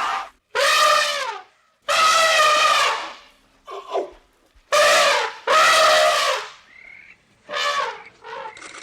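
Elephant trumpeting: a series of about six loud, brassy calls, most about a second long, several dropping in pitch as they end.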